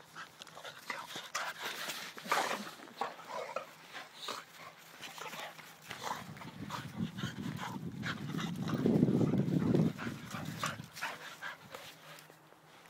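Two dogs play-fighting, an Alapaha blue blood bulldog and a blue Staffy: quick scuffling and short vocal sounds, with a low growl-like rumble building from about six seconds in, loudest around nine seconds, and dying away near eleven.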